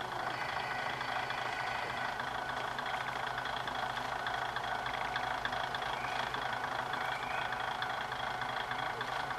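Kominato Railway KiHa 200 diesel railcar idling while it stands at the station: a steady low engine hum under a dense, steady higher-pitched background din.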